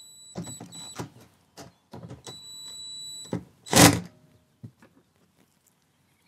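Power drill driving screws into a plastic kayak deck: its motor whines in short stop-start pulses, then runs for about a second, with care taken not to over-tighten the screws in the plastic. A single loud knock follows a little before four seconds in.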